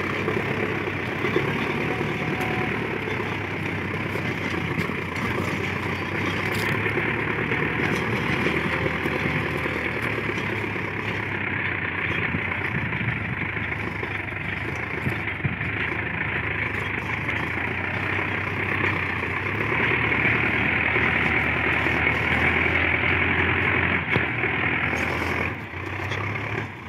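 Sonalika DI-750 tractor's diesel engine working steadily under load as it pulls a three-bottom plough through dry soil, growing a little louder about twenty seconds in.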